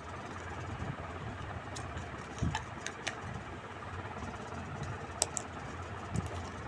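Light clicks and taps of a plastic toy spoon and toy dishes being handled, a few scattered clicks, the sharpest about five seconds in, over a steady low hum.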